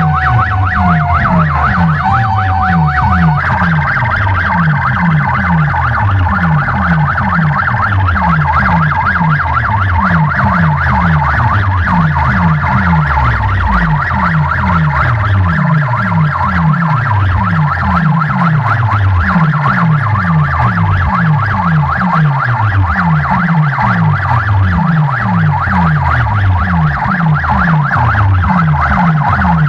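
Loud music from a DJ box sound system of stacked loudspeaker cabinets: a fast train of deep bass hits, each sliding down in pitch, about three a second, under a rapidly wavering high tone.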